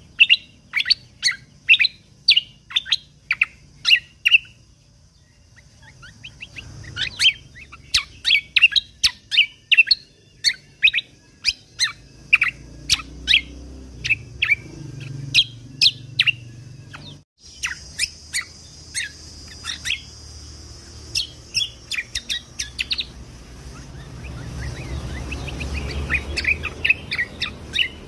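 Cucak kombo (kecial kombok) songbird singing in rapid series of short, sharp, high chirps, with a short pause about five seconds in. A faint steady high hiss runs underneath.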